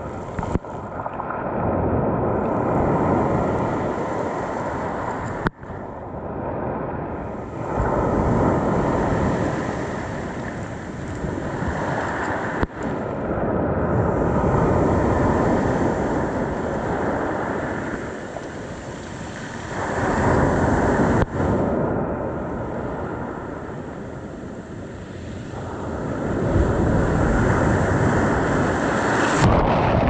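Sea waves breaking on a pebble beach, the surf surging up over the stones and washing back. It swells and fades about every six seconds, and the sound briefly drops out three times.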